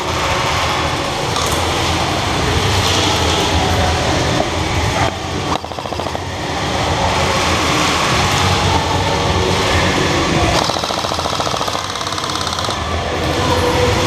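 Airsoft electric rifles firing rapid full-auto bursts, a fast mechanical rattle that goes on almost without a break, echoing in a large warehouse hall.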